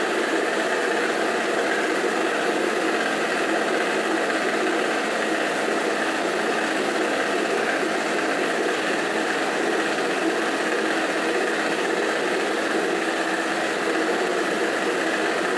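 Electric stand mixer running steadily, its motor humming as the beaters whip cake batter.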